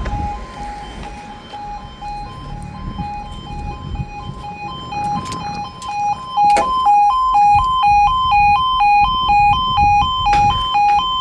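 Level crossing warning alarm sounding a two-tone warble, switching rapidly back and forth between two pitches, while the road lights show red and the barriers come down. It grows much louder about two-thirds of the way in, with a single knock just as it does.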